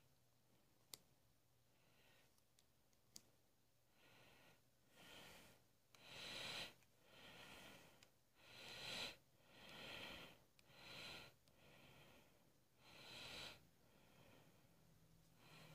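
Faint breathing close to the microphone, a soft swell roughly every second, after two sharp clicks in the first few seconds.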